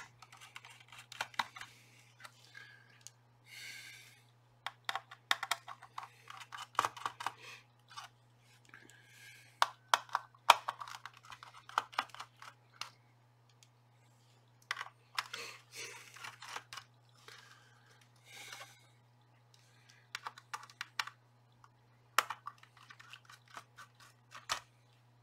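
Hands taking small screws out of a Sangean ATS-909X2 radio's circuit board and setting them down on the desk: irregular light clicks, taps and scratches in clusters with short pauses, over a faint steady low hum.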